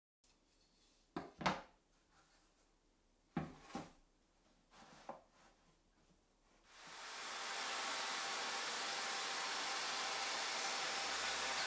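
Wooden boards knocked and set down on a workbench, a few pairs of knocks, then a corded circular saw with a dust-extraction hose starts running about seven seconds in, a steady loud whooshing run as it crosscuts 9 mm MDF.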